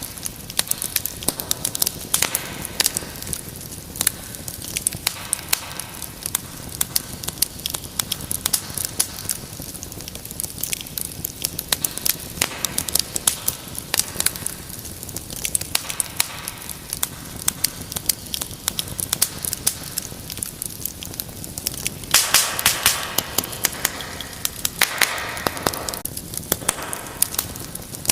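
Wood fire burning with a steady hiss and many sharp crackles and pops, which grow denser and louder for a few seconds about three-quarters of the way through.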